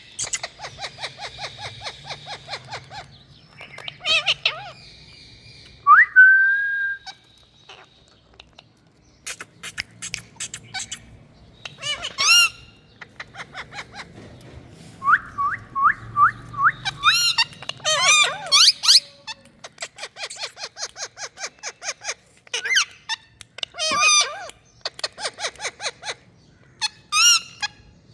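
Indian ringneck parakeet calling: rapid runs of chirps, a rising whistle, and louder calls in short series.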